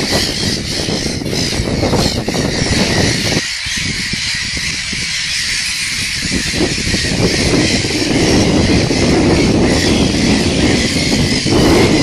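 Wind rumbling on a phone's microphone, easing for a few seconds about four seconds in, with the calls of a gull colony wheeling overhead behind it.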